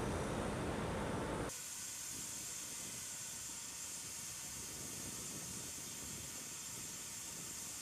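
A low outdoor rumble cuts off abruptly about a second and a half in and gives way to a steady high hiss.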